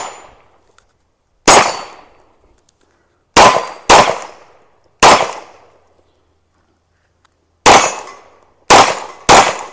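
Pistol fired seven times at an uneven pace, single shots and quick pairs, each report dying away quickly. Some shots carry a short metallic ring from hits on steel targets.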